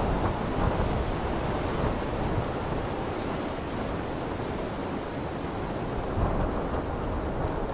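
Wind and open sea: a steady, even rushing noise with no tone or rhythm in it.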